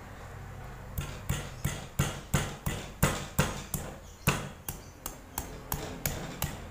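Pestle pounding pieces of galangal in a mortar, bruising them (geprek) to release their aroma for the curry. Starts about a second in, then runs as a steady series of sharp knocks, about three a second.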